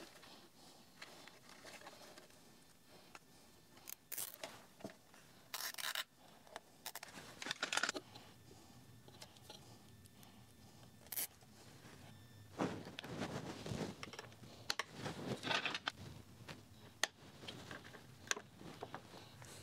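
Nylon cable ties being zipped tight around wiring and their tails snipped off with scissors: a scatter of short rasps and snips among hand-handling noises.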